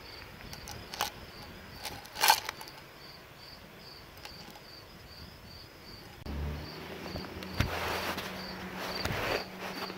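A cricket chirping steadily, about three chirps a second, with a few sharp knocks and clicks; about six seconds in a low steady hum joins.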